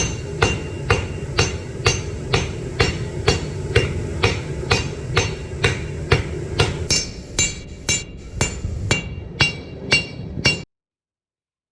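Hand hammer striking hot steel on an anvil in a steady rhythm of about two blows a second, each blow ringing, over a steady low hum. The hammering cuts off suddenly near the end.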